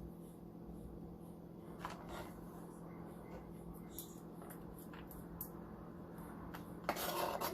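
Soft rustling and light clicks of food being mixed by hand in a bowl as cilantro goes into the crumbled fried rice, over a steady faint hum. A louder rustle comes near the end.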